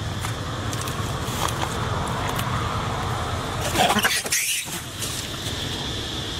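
Steady outdoor background rumble and hiss with a constant high-pitched tone, and a brief burst of camera-handling noise as the camera is swung about four seconds in.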